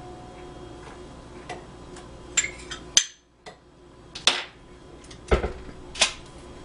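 Scattered clinks and knocks of a measuring cup and utensil against a stand mixer's steel bowl as butter is added to cream cheese, about six separate strikes with one duller, deeper thump a little past the middle.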